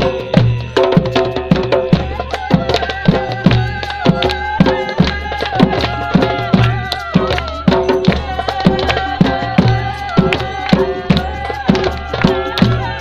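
Live folk-style music: a drum beating a steady, driving rhythm with a wavering melody line held over it.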